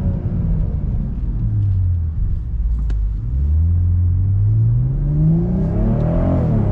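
BMW M440i's turbocharged inline-six through an AC Schnitzer sport exhaust, driven in Sport Plus: a steady engine note, then a single sharp crack, after which the engine pulls hard with its pitch climbing steadily. Near the end the pitch drops abruptly at an upshift and starts climbing again.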